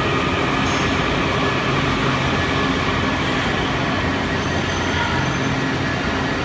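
Washington Metro 7000-series subway train rolling slowly alongside an underground platform as it arrives: a steady rumble of wheels on rail with a faint thin whine running through it.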